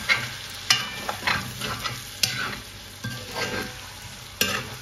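Metal spatula scraping and stirring tayer (arrowleaf elephant ear) chunks frying in oil in a metal wok-style pan. There are repeated irregular scrapes, roughly one or two a second, over a soft sizzle.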